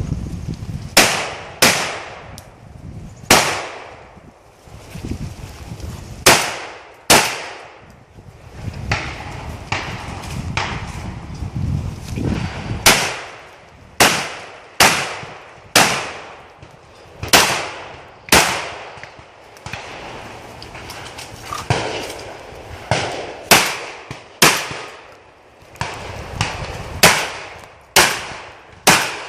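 Shotgun firing a long string of about eighteen shots at steel and clay targets, in quick runs of two to four with pauses of a few seconds between them, each shot sharp with a short echoing tail.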